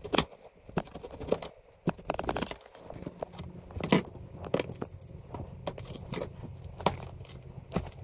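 A chef's knife slicing through a raw white onion, with onion layers being pulled apart by hand: irregular crisp cuts, crackles and taps.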